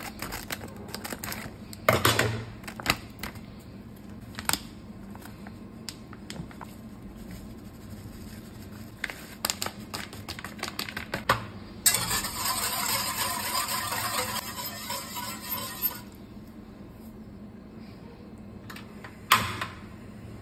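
Metal cookware and utensils being handled: scattered light clicks and clinks, with louder knocks about two seconds in and near the end. About twelve seconds in, a steady hiss runs for about four seconds and cuts off suddenly.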